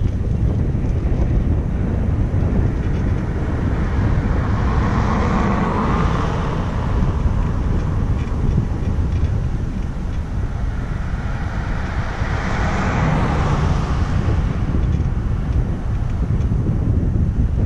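Wind rumbling on the microphone, with two vehicles passing by, each swelling and fading, about five and twelve seconds in.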